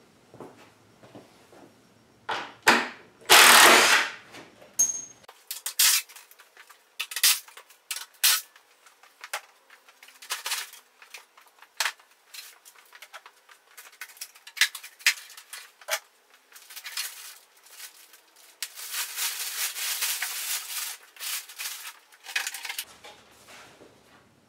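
A cordless drill runs briefly in short bursts, backing out the crate bolts. Then come scattered knocks and clatters of the wooden shipping crate being lifted off and set down. Near the end, plastic wrap rustles for a few seconds as it is pulled off the engine.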